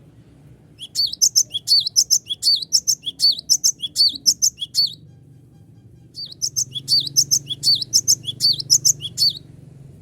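Cinereous tit (gelatik batu) singing two bouts of a rapid, high, repeated phrase, about three to four phrases a second, with a short pause between the bouts.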